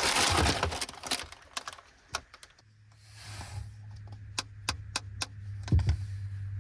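Plastic snack packaging crinkling, then a run of light clicks and taps as packets are handled and set down on a hard surface, with a short second rustle and a dull thump near the end.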